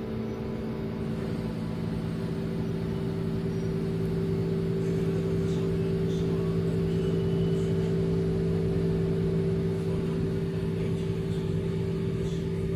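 LG front-load washing machine on its spin cycle: a steady motor hum and whine over a rumble, growing a little louder partway through and easing slightly near the end.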